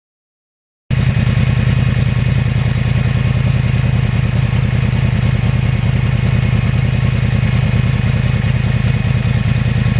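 2009 Yamaha R1's crossplane inline-four engine idling steadily through its aftermarket exhaust, cutting in abruptly about a second in.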